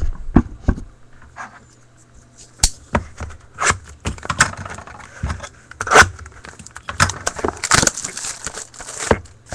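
Plastic wrapping and cardboard of a sealed trading-card box being handled and torn open: crinkling and crackling with many sharp clicks and taps, busiest near the end.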